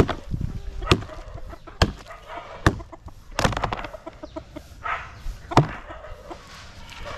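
Chickens clucking, with several sharp knocks in the first few seconds as a plastic container tips feed into a shallow plastic feed tray.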